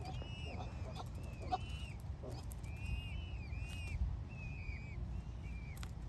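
Indian peafowl chicks peeping: a string of short, high, arched peeps, several a second at times, as the brood forages with the peahen.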